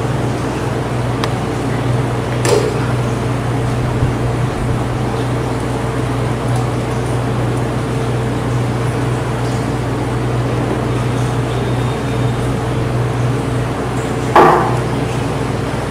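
Steady low hum throughout, with a light click about two and a half seconds in and a louder knock near the end as the blender jar and glass are handled.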